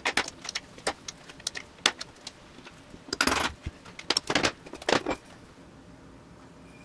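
A hammer gives a run of light taps to a transfer punch set in the bolt holes of an aluminium adapter plate clamped to a T5 transmission's housing, marking the spots to drill. These are followed by three longer metallic scrapes and clanks as the steel C-clamps are undone and the plate is lifted off.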